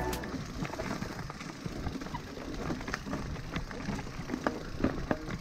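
Mountain bike rolling over a rocky, stony trail: tyre noise over loose stones with many irregular clicks and knocks as the bike jolts over the rocks.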